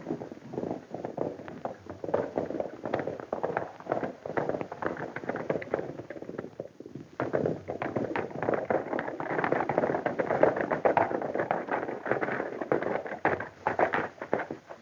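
Old film soundtrack packed with rapid clattering knocks and thuds over a hissy background, easing off briefly about seven seconds in and then picking up again.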